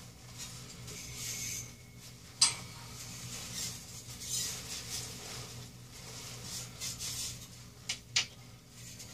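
Rustling of shiny nylon track clothing and a plastic diaper as a person moves and sits down on a bed. There is a sharp click about two and a half seconds in and two more close together near the end, over a steady low hum.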